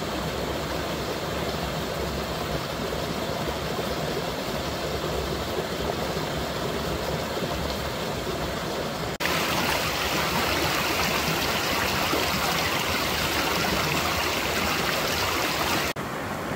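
Small woodland stream rushing over rocks, a little waterfall pouring steadily into a pool. About nine seconds in the sound cuts suddenly to a louder, hissier rush of water, and it changes again just before the end.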